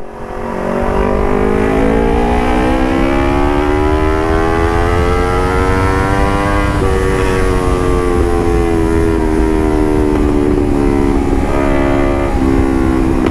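Motorcycle engine breathing through a DX carbon aftermarket exhaust, pulled hard under acceleration. Its note rises steadily for several seconds, drops in pitch about seven seconds in, then holds nearly level.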